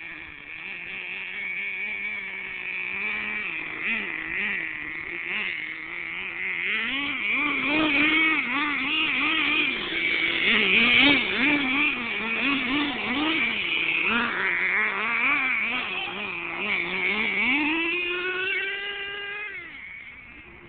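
Small nitro engine of a Redcat Racing Earthquake 3.5 RC monster truck running, its pitch wavering up and down with the throttle. It gets louder and busier from about seven seconds in, then near the end revs up in a glide and drops away.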